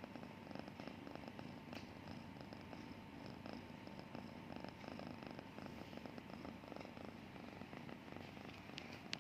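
Domestic cat purring steadily with a fast, even pulse.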